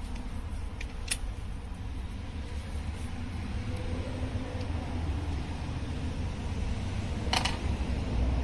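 Door trim being refitted: a sharp click about a second in and a louder snap near the end, over a steady low rumble.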